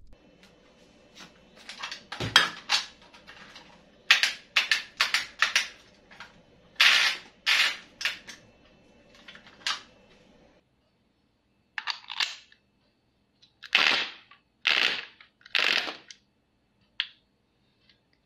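A string of sharp plastic clicks and clacks from a 3D-printed PLA rubber band gun modelled on the Škorpion vz. 61 as it is handled and its folding wire stock is swung out. The clicks come irregularly in small groups, with a short pause a little past halfway.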